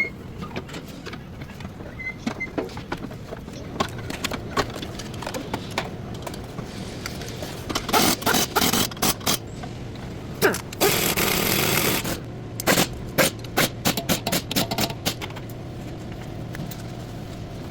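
Metal tools and car parts clinking and knocking repeatedly during front drive shaft replacement work, with a steady burst of noise lasting about a second around eleven seconds in.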